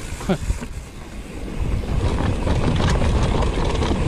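Mountain bike running down a dirt trail: wind buffeting the microphone and the bike rattling over rough ground. It grows louder and busier about a second and a half in as speed picks up.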